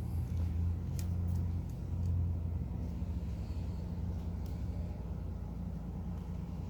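Low steady hum or rumble with a few faint clicks.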